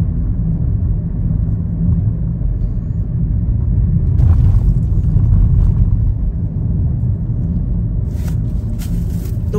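Steady low rumble of a moving car heard from inside the cabin: tyre and engine noise on the road, with short hissy sounds about four seconds in and again near the end.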